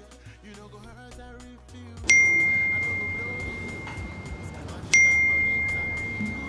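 Background music for about the first two seconds, then a smartphone's message notification chime sounds twice, about three seconds apart. Each is a single bright ding that rings on and fades slowly.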